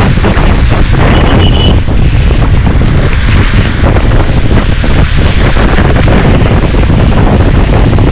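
Wind buffeting the microphone on a moving motorbike, a loud, steady rush with road noise from the bike on the wet road beneath it. A short high beep a little over a second in.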